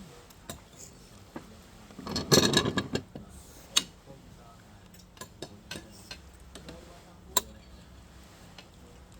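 Cutlery and dishes clinking during a meal: scattered sharp clicks, with a denser clatter a little over two seconds in and single louder clicks near four and seven seconds.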